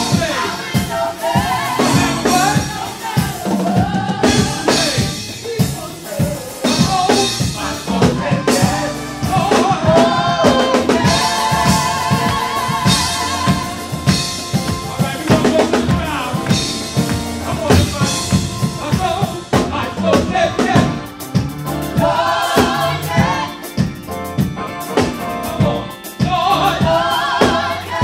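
Gospel vocal group singing live, a lead singer with several backing singers, over a drum kit keeping a steady beat.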